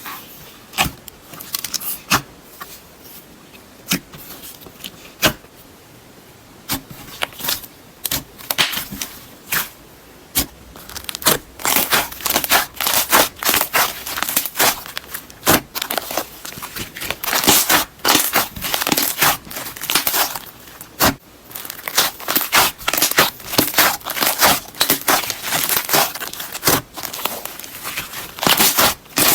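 Slime being played with by hand, giving off sharp crackling clicks and pops. They come one at a time at first and run thick and fast from about a third of the way in.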